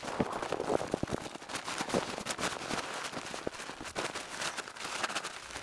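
A BASE pilot chute's fabric being folded and scrunched by hand: dense, irregular crinkly rustling with many small crackles.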